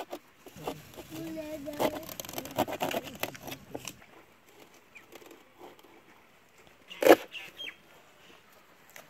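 A green bamboo stick and thorns being pushed into a soft banana-trunk pipe, giving scattered crunching clicks, with one sharp knock about seven seconds in.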